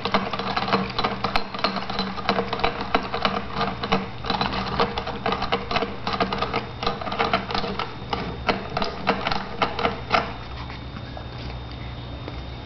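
Shih Tzu puppy drinking from the steel nozzle of a ball-valve water bottle: rapid, irregular metallic clicking as its tongue works the valve. The clicking stops about ten seconds in.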